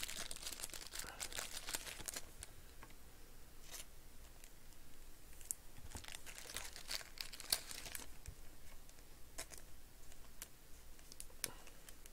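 Thin plastic penny sleeves crinkling and rustling as trading cards are handled and slid into them, with scattered short, sharp crackles, the loudest about halfway through.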